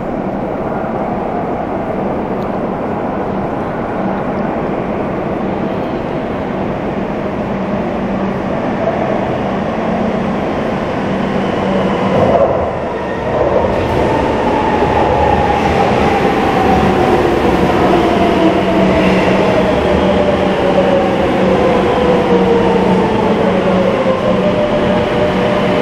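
Electric metro train pulling into an underground station: steady rumble with a constant low hum. Its motors' whine falls in pitch from about halfway through as the train brakes to a stop at the platform.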